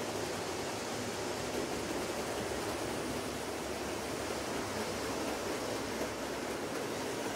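OO gauge model freight train running round the layout: a steady rolling noise of the locomotive and its wagons on the track.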